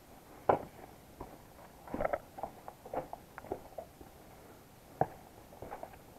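Footsteps on a stony path strewn with dry leaves: irregular crunches and scuffs, with a sharp step about half a second in and another about five seconds in.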